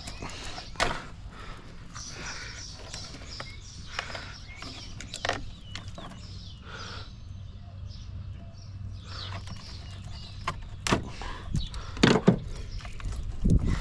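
Scattered knocks and clunks from hand work on a truck, the loudest near the end, with birds chirping in the background.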